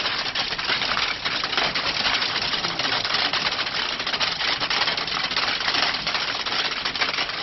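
Hailstones falling hard and striking the ground: a dense, steady clatter of countless small rapid hits.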